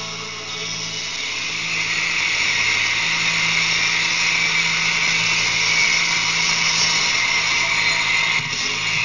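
Concert crowd screaming and cheering as the song ends, a dense high-pitched wall of shrieks that swells about a second and a half in, over a steady low hum.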